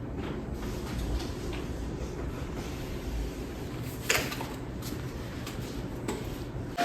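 Steady low room hum, with a sharp knock about four seconds in and a softer one about two seconds later.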